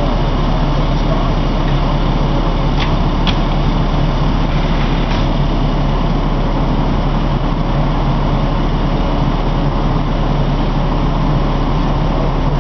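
Fire engine's engine running at a steady idle, a constant low drone, with a few faint clicks about three and five seconds in.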